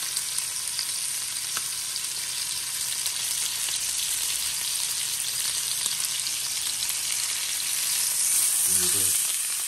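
Rack of lamb searing in hot olive oil in a frying pan: a steady sizzle with fine crackling.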